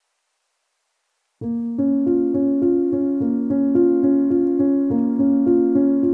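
Silence for about a second and a half, then background piano music starts abruptly, with notes struck at a steady, even pace.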